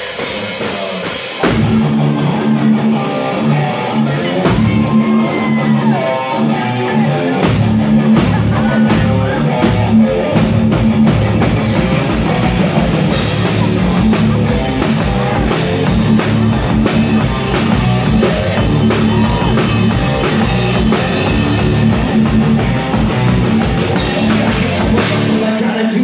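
Live rock band playing loud: electric guitar, bass and a DW drum kit, with the full band coming in about a second and a half in.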